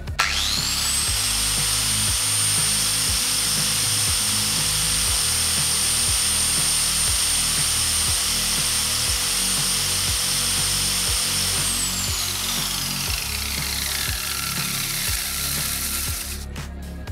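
Electric motor driving an abrasive sanding disc: it spins up with a rising whine, runs steadily while a steel meat grinder plate is pressed flat against the disc to grind its cutting face, then is switched off and winds down with a falling whine about twelve seconds in. Background music plays underneath.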